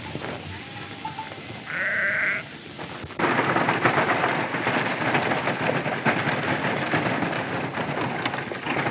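A sheep bleats briefly about two seconds in. From about three seconds in comes a sudden, loud, dense clatter of galloping hooves and rattling wheels: a horse-drawn wagon driven at a run.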